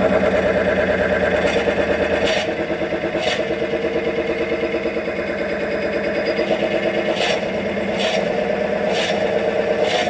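Wood lathe running while a 30 mm Forstner bit is wound in from the tailstock to bore the centre of a spinning horse chestnut blank: a steady pitched hum with a fast pulsing, broken by a handful of sharp clicks.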